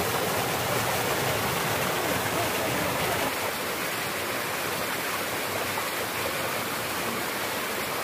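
Water of a mountain stream rushing and splashing over boulders in small cascades, a steady hiss with no pauses. A little over three seconds in it turns slightly quieter, with less low rumble.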